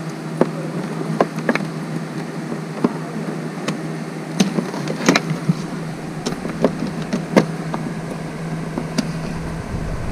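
Irregular light plastic clicks and taps from a wiring harness and bulb-socket connector being fed into a plastic LED tail light housing by hand, over a steady low hum that stops near the end.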